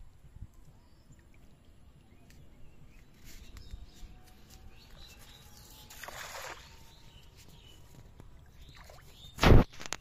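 Cast net landing on a river: a brief rushing splash about six seconds in as the spread net's rim hits the water. Near the end a short, sharp thump, the loudest sound here.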